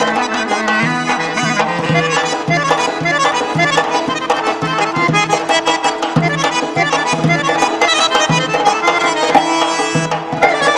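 Azerbaijani garmon (button accordion) playing a dance tune: a busy run of melody notes over a steady held drone and a regular pulsing bass.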